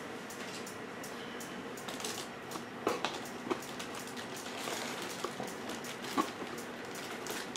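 Plastic model-kit parts being handled in and over a cardboard kit box: a few light clicks and faint rustling over a low hiss.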